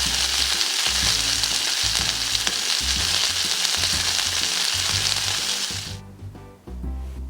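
Chop steak sizzling loudly in a hot pan, a steady frying hiss that cuts off suddenly about six seconds in. Background music with a low bass line plays underneath and carries on alone after the sizzle stops.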